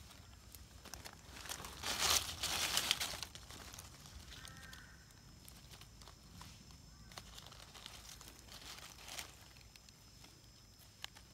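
Dry fallen leaves crunching and rustling as they are pushed aside and stepped on, loudest in a burst about two seconds in, with softer rustles and a few twig snaps later.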